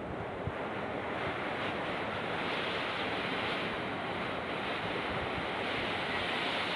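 Steady rush of a wide, muddy river in monsoon flood, with wind buffeting the microphone in a few low bumps.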